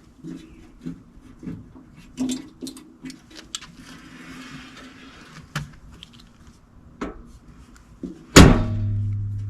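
Aluminum UTV door on a Honda Talon being handled with light clicks and knocks, then swung shut with one loud metallic slam about eight seconds in that rings on and fades.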